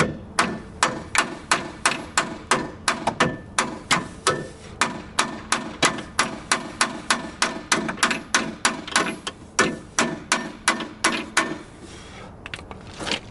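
Hammer blows on the steel front crossmember of a VAZ 2107, struck at about three a second with a short metallic ring after each, to knock it free from the body. The blows stop near the end.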